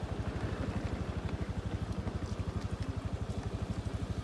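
Motorcycle engine running at low, steady revs, its exhaust beat pulsing evenly.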